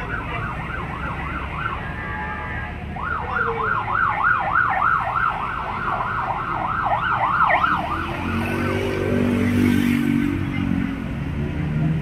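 Emergency vehicle siren in a fast yelp, its pitch rising and falling about three times a second. It is faint at first, louder from about three seconds in, and stops near eight seconds. A low engine drone follows it.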